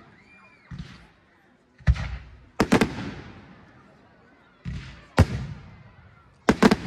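Aerial fireworks bursting: a run of sharp bangs and booms a second or so apart, some coming as quick double or triple cracks around the three-second mark and near the end, each trailing off.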